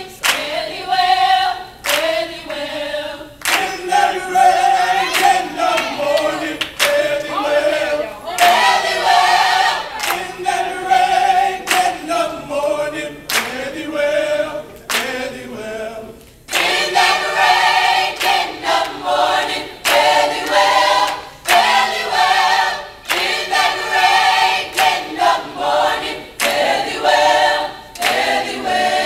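A mixed choir of men and women singing together, with the singers clapping along in rhythm.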